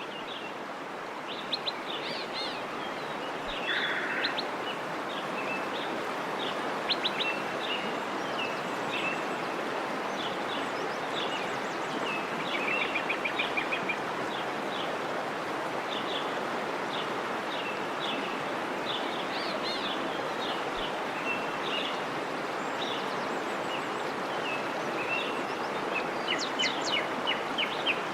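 Several birds chirping, with short calls and a few quick trills, over a steady rushing background noise.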